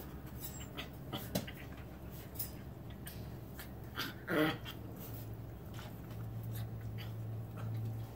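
Six-week-old Brittany puppies panting and snuffling while one mouths and paws at a wire pen panel, with scattered light clicks and rattles of the wire and a short whimper about four seconds in.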